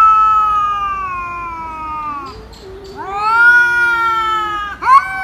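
Two domestic cats in a face-off caterwauling: long drawn-out yowls of about two seconds each that sag in pitch at the end, over a lower moaning growl, with a short sharp yowl near the end. It is the sound of a territorial standoff.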